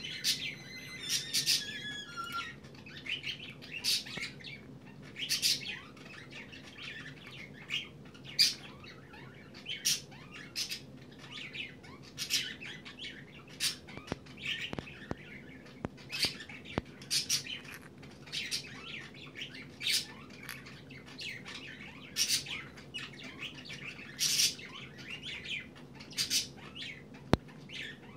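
Green-cheeked conure grinding its beak: a long, regular series of short, dry, high scraping grinds, roughly one a second. Beak grinding is the sign of a relaxed, sleepy parrot.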